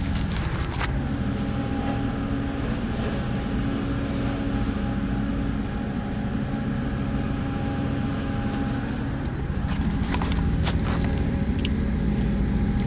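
Boat engine droning steadily, heard from inside the cabin, with a few short knocks or rattles about ten seconds in.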